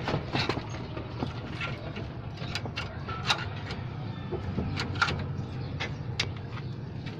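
Irregular metal clicks and clinks from hand tools working at a car's scissor jack and underbody, over a steady low hum; the sharpest clicks come about three and five seconds in.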